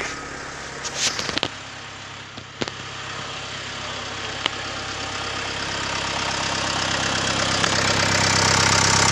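2009 Renault Trafic's 2.0-litre turbo-diesel engine idling steadily, growing louder toward the end as it is heard closer to the open engine bay; the engine is running sound. A few short knocks and clicks in the first few seconds.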